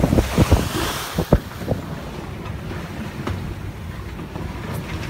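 Strong wind buffeting the microphone on a sailboat under way, with low thumps and water rushing along the hull; the gusts ease after about a second and a half into a quieter, steady low rumble.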